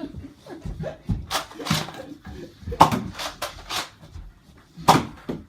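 Irregular knocks, thumps and scuffling of people moving about a small room, with two sharper hits, one about three seconds in and one near the end.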